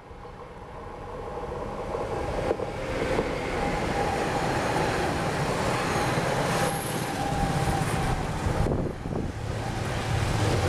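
Rolling-highway freight train, low-floor wagons loaded with lorries, passing close by behind an electric locomotive. The rumble swells over the first two or three seconds as the train comes near, then holds steady as the wagons roll past, with a steady whining tone over it.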